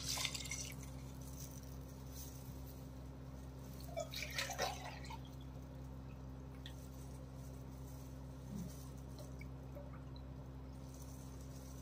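Water poured from a steel mug into an aluminium pot of raw rice, the pour ending within the first second; a few drips and small splashes about four seconds in, over a low steady hum.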